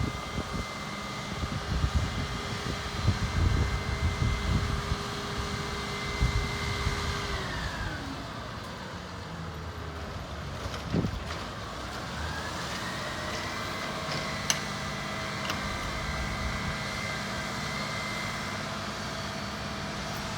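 A crane's engine running steadily, then dropping in pitch about eight seconds in and climbing back up a few seconds later as it throttles down and up while lifting. Wind buffets the microphone in the first few seconds.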